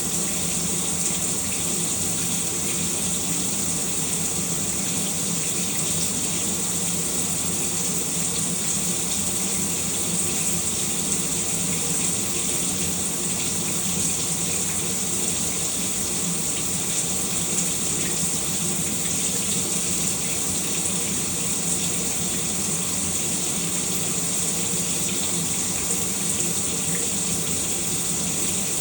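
Shower running steadily, water spraying and splashing with an even hiss.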